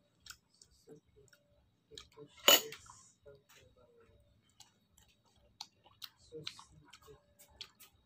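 Quiet eating sounds from slices of sour mango: scattered small mouth clicks, chewing and light taps on a dish, with one louder sharp sound about two and a half seconds in.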